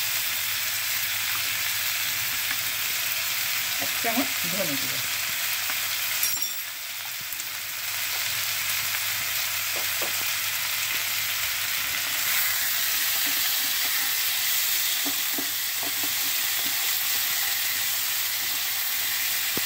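Vegetables sizzling steadily in oil in a nonstick frying pan, with a brief quieter dip about six seconds in. Near the end a silicone spatula stirs them.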